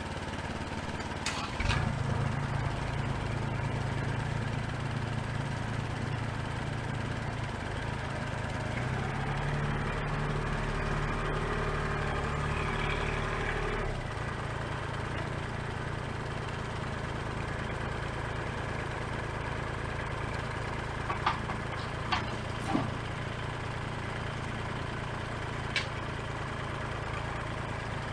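An engine running steadily, its tone shifting slightly about two seconds in and again about halfway through, with a few short sharp clicks in the last third.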